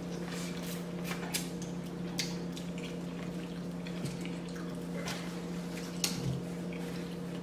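Eating sounds of a seafood-boil mukbang: scattered wet chewing smacks and small clicks of food being bitten and handled, over a steady low hum.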